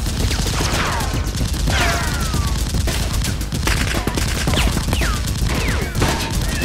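Sustained rapid automatic gunfire sound effects, dubbed in for Nerf blasters, the shots coming thick and fast without a break. Several ringing tones sweep down in pitch among the shots.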